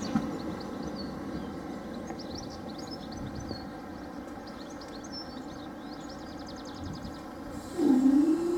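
Rumble of a Class 375 electric train fading away as it clears the crossing, followed by birds chirping. Near the end, a motor starts with a short gliding whine that settles into a steady hum, as the level crossing barriers begin to rise.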